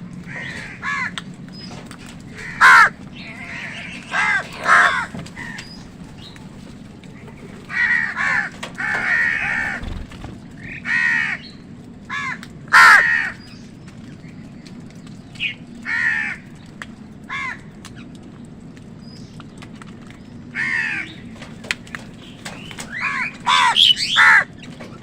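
Crows cawing: harsh calls, alone or in short runs of two or three, come irregularly, with the loudest a few seconds in and about halfway. A steady low hum runs underneath.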